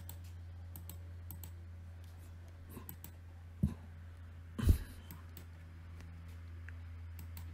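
Light, scattered clicks of a computer mouse over a steady low electrical hum. Two short, soft low thumps come a little past the middle.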